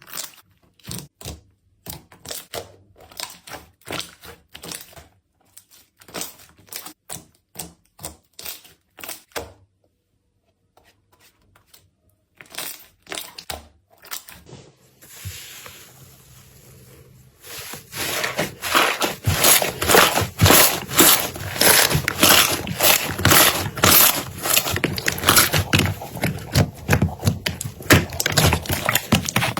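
Slime being squeezed and poked by hand, giving a run of sharp sticky clicks and pops. After a short pause it turns into a louder, dense crackling a little past halfway.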